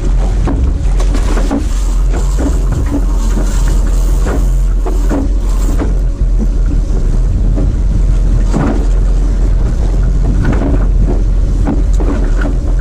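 Wind buffeting the microphone aboard a small fishing boat at sea, a steady loud rush with scattered knocks and clatter on deck.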